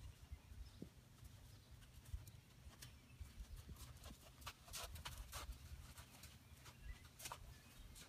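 Faint hoof steps of a horse walking on sand, with a few short sharper sounds between about three and seven seconds in, over a low steady rumble.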